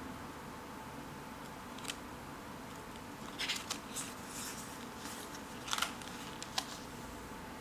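Paper rustling and crackling as a page of a spiral-bound sketchbook, covered in dried paint dabs, is handled and turned: a few short crisp rustles and clicks over a steady faint hiss.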